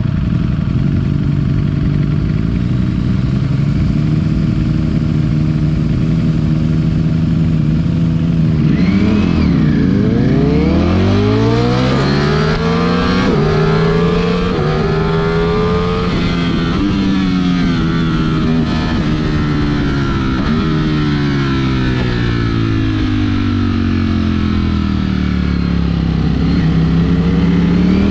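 Ducati Streetfighter V4S's 1103 cc V4 engine under way. It runs steadily at first, then from about a third of the way in it accelerates hard through three upshifts, each a rising pitch that drops back at the gear change. It then slows, the pitch falling in steps through downshifts, and picks up again near the end.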